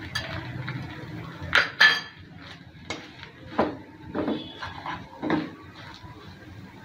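Spatula stirring a thick mixture of boiled peas in a frying pan, knocking and scraping against the pan several times. Two sharper clinks come about one and a half seconds in.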